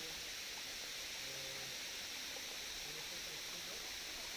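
Karekare Falls waterfall: a steady, even rush of falling water.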